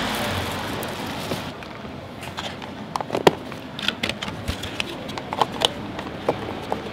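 A steady hiss of flame or sizzling that stops about a second and a half in, followed by scattered light clicks and taps.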